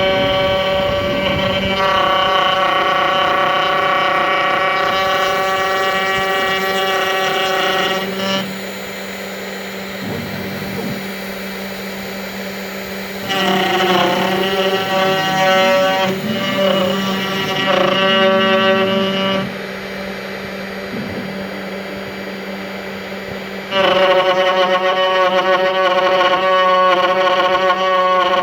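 CNC router running: a steady motor hum with a whine of several high pitches on top. The whine is loud for stretches of several seconds and drops back between them, rising again near the start, about halfway through and again near the end.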